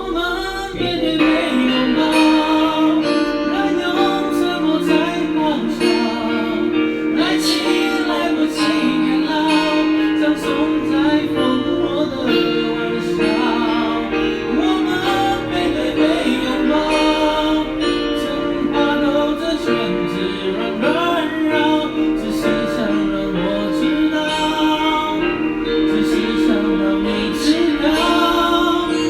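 A pop song sung over a guitar-led backing track, played through a karaoke microphone.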